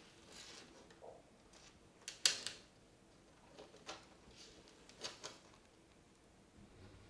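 Argus monitor lizard feeding in a bathtub: scattered clicks and scrapes of its claws on the tub and its jaws working a hamster, the loudest a quick cluster a little over two seconds in.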